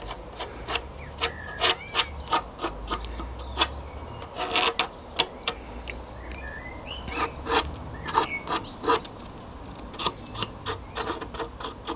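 A small spatula scraping and tapping on balsa wood in many short, irregular strokes, spreading glue onto the model's formers, with a few faint squeaks.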